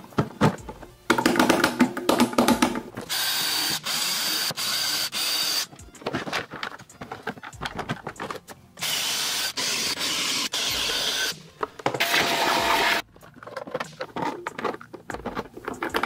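Cordless drill running with a 1 1/8-inch Forstner bit boring through a plastic hard case, in three steady runs of a few seconds each. Clicks and handling clatter come between the runs.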